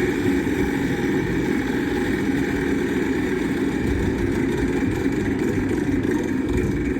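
Wheel of Fortune slot machine's bonus wheel spin sound effect, a steady, dense whirring that runs evenly and cuts off near the end as the wheel stops.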